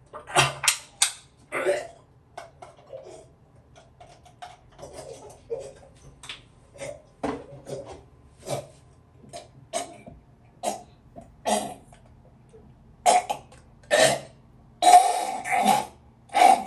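A person coughing over and over in short, uneven coughs, louder and closer together near the end.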